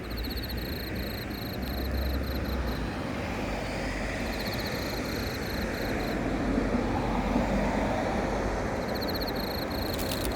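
A cricket chirping in high, rapid pulse trains, three bursts of a few seconds each, over a steady low rumble of distant engine noise that swells about halfway through.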